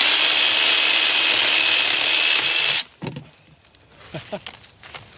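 Black & Decker 20V cordless jigsaw running at full speed with a steady high whine as it cuts into bush branches, shutting off suddenly about three seconds in.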